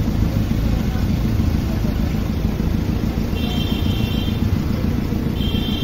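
Steady low rumble of a moving road vehicle's engine and road noise in traffic. Two short high beeps sound about two seconds apart, the second near the end.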